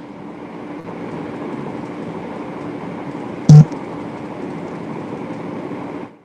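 A man breathing out in one long, slow, steady exhale after holding a full breath in long deep breathing (dirgha shwasan pranayama), close to the microphone. It stops about six seconds in, and a single loud thump comes about halfway through.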